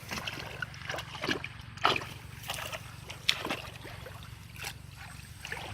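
Water splashing and sloshing in irregular bursts, with sharper splashes about two and three seconds in.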